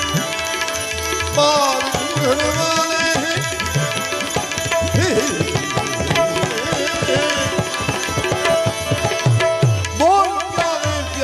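Bhajan accompaniment: tabla playing a busy rhythm, its bass strokes sliding in pitch, over a held drone and a melody line.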